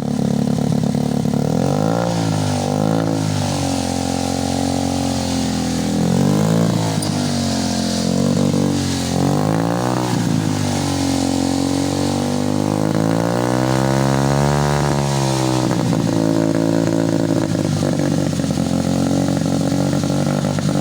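A 70cc motorcycle engine idling and being revved in a series of short throttle blips, with one longer, slower rise and fall about two-thirds of the way through.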